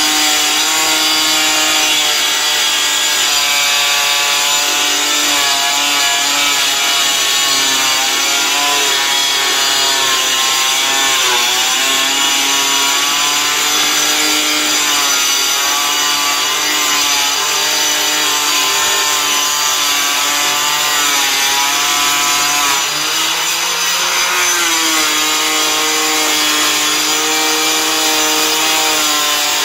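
Handheld angle grinder with a cutting disc running steadily as it cuts a 4 mm GRC fibre-cement board, a motor whine over the hiss of the disc grinding through the board. The pitch sags briefly under load twice, about a third of the way in and again about three quarters of the way in, then recovers.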